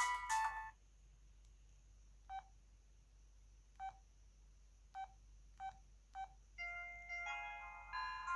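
O2 Ice mobile phone's ringtone melody cutting off, then five short keypad beeps, and another ringtone melody starting about six and a half seconds in.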